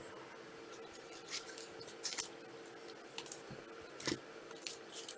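Trading cards being handled, with short scattered rustles and slides about once a second over a faint steady hum.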